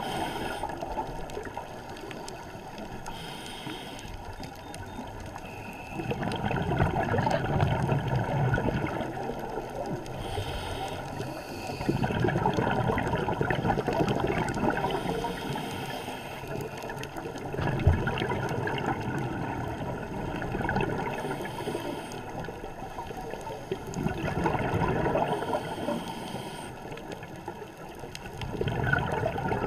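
Scuba breathing through a regulator, heard underwater through a camera housing: a short hiss on each inhale, then a long bubbling rush of exhaled air, repeating about every five to six seconds. One sharp knock about two thirds of the way through.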